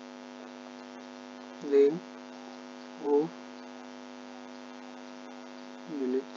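Steady electrical mains hum, a buzz of many even tones, on the recording. It is broken three times by short spoken syllables, about two, three and six seconds in.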